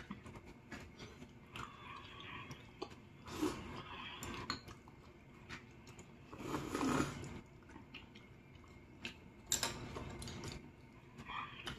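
Close-up chewing of ramyeon noodles and chewy rice cakes, with small scattered clicks and a few louder mouth-noise bursts, the loudest about seven seconds in.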